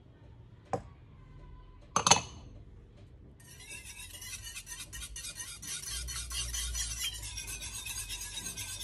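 A short knock and then a sharp, ringing clink, followed from about three seconds in by a metal balloon whisk beating thin egg-and-buttermilk batter in a bowl: a fast, continuous scraping rattle of the wires against the bowl that grows louder.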